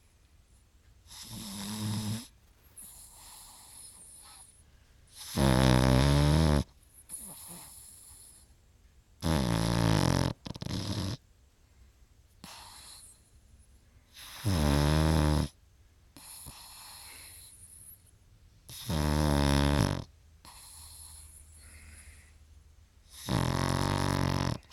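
Pug snoring in its sleep: six snores about four to five seconds apart, the first one softer, with quieter breathing between them.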